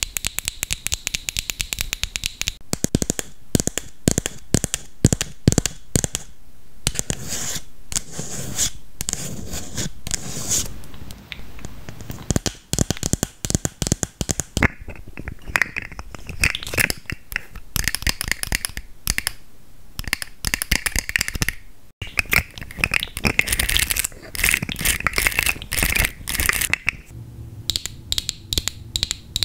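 Close-miked ASMR fingernail tapping and scratching: long nails clicking and scraping on skin and on each other in a dense, irregular run of quick taps.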